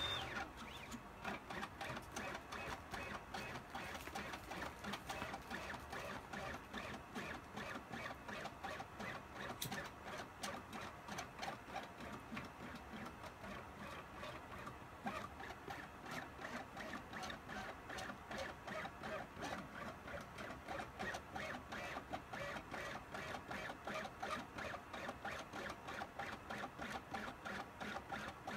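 CNC pen plotter's stepper motors driving the gantry as the pen traces an outline: a steady, mechanical whirring chatter made of a fast, even run of ticks.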